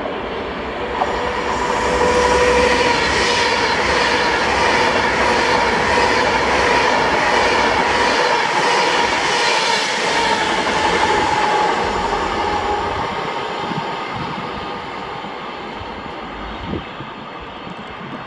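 Class 390 Pendolino electric train passing: a rush of wheels on rail and air builds within the first couple of seconds, with a steady whine, stays loud for about ten seconds, then fades away.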